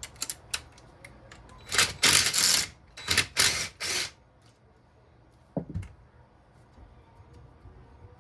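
Ratchet wrench clicking in two short, quick runs, backing out a 10 mm bolt on a Honda CRF150R engine, with a few single clicks before and one knock about five and a half seconds in.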